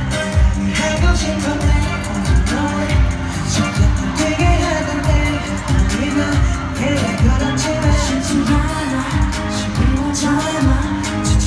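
Live pop song: a male vocalist singing into a handheld microphone over a backing track with a steady thumping beat, played through an arena's sound system.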